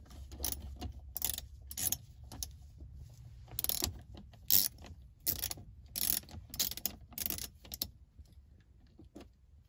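Ratchet wrench loosening small bolts: short bursts of ratchet clicking, about ten of them at irregular spacing, stopping near the end.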